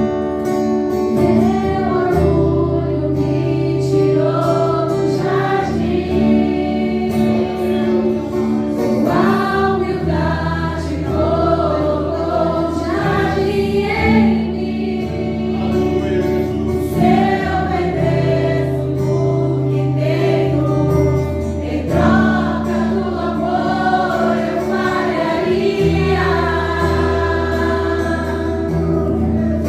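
Gospel worship song: a group of voices singing together over instrumental backing with long held bass notes.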